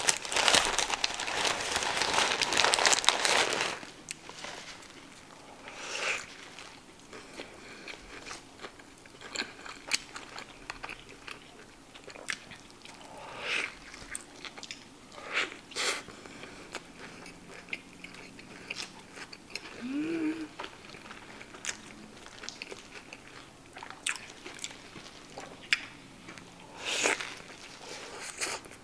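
Close-miked eating of a cheeseburger with lettuce and chopped pepperoncinis. The paper burger wrapper crinkles loudly for the first few seconds, then come bites, soft crunches and wet chewing at a lower level.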